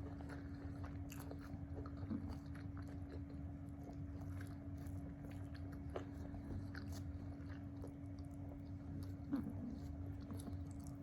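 Close-miked eating: a person biting and chewing food, with scattered small mouth clicks and crunches over a steady low hum.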